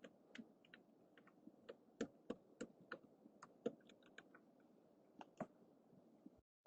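Computer keyboard being typed on at an unhurried pace: soft, irregular keystroke clicks, a few a second, picked up by a low-budget microphone. The sound drops out to dead silence for a moment near the end.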